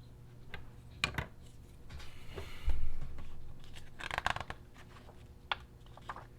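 Plastic RC truck kit parts being handled and fitted together by hand: scattered sharp clicks and taps, a brief rustle ending in a thump about two and a half seconds in, and a quick cluster of clicks a little later.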